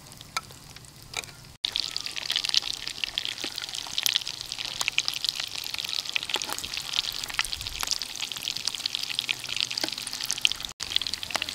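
Pieces of fish frying in hot oil in a pan: a dense crackling sizzle with many small pops. It starts suddenly about a second and a half in, after a few faint clicks.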